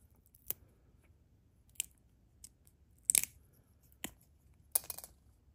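Small plastic parts of an Apple earphones' in-line remote clicking and snapping as it is pried and cut apart: about half a dozen sharp clicks, with the loudest quick cluster of snaps just past the middle.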